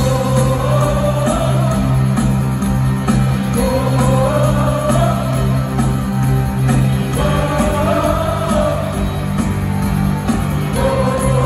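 Live rock band playing with a lead vocal sung in phrases of two to three seconds over a steady bass and guitar, heard from the arena stands.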